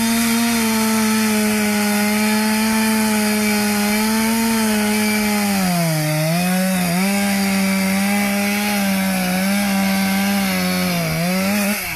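Chainsaw running at full throttle as it cuts through a conifer trunk. Its pitch sags twice about halfway through as the chain bites harder, then picks up again and stops just before the end.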